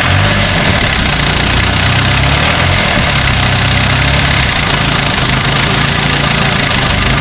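Diesel engine of an owner-type jeep idling steadily, running well. It is an indirect-injection diesel that needs its glow plugs heated before starting.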